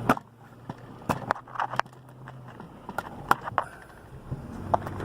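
Handling noise from a phone camera being set into a car mount: a string of irregular clicks and knocks over the low hum of the car.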